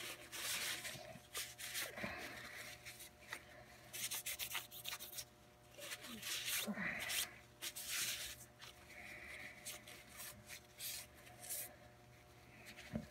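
A rag rubs and wipes over the metal blowback bolt of a 9mm AR in short, irregular scrubbing strokes, with a few light clicks as the bolt is handled.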